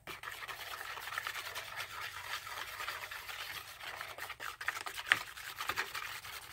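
A plastic stick stirring a thick, foamy mixture of foaming hand soap and cocoa in a plastic bowl: a steady wet, fizzy sound full of small clicks, starting abruptly as the stirring begins.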